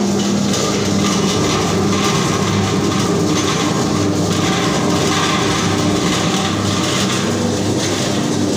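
A 20-litre commercial tilting wet grinder running: a steady motor hum under a continuous mechanical rumble and rattle.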